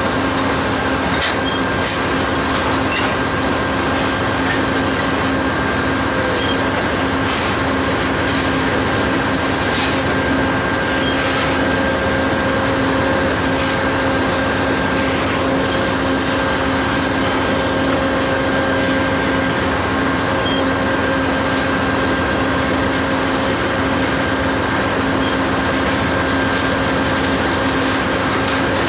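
Covered hopper cars of a freight train rolling past on the rails: a steady, loud wheel-on-rail noise with a few faint steady tones running through it and a handful of brief clicks.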